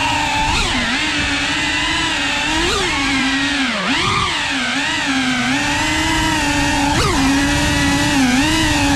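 Cinewoop FPV quadcopter's motors and ducted propellers whining steadily in flight, the pitch swooping up sharply three times and dipping then rising once about four seconds in as the throttle is blipped and eased.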